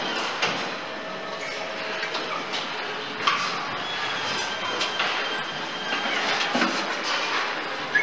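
Car assembly-hall noise: a steady mechanical hum and hiss with scattered metallic clanks and knocks from parts and tools being handled at the line, the sharpest about three seconds in and at the end.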